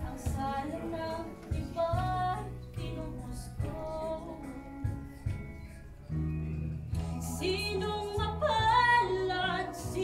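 A woman singing a song over instrumental accompaniment. Her voice climbs higher and louder, with a wavering vibrato, about seven seconds in.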